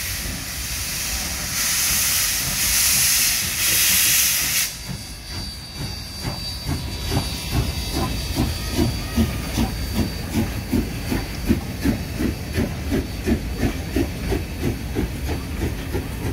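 Steam locomotives passing close by: a loud steam hiss surging about once a second, which drops off after about four and a half seconds. Then the train's wheels clack rhythmically over the track, about three knocks a second, as the carriages roll past.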